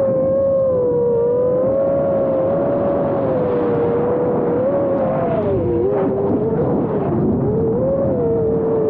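Brushless motors and propellers of an iFlight Nazgul Evoque F5 5-inch FPV quadcopter whining in flight, heard through the onboard camera's microphone. The pitch holds fairly steady, then dips and wavers with throttle changes past the middle, and rises again near the end.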